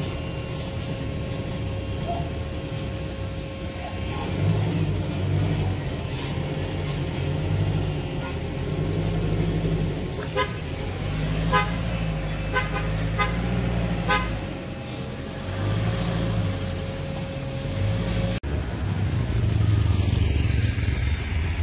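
A motor vehicle's engine running, with several short horn toots about ten to fourteen seconds in.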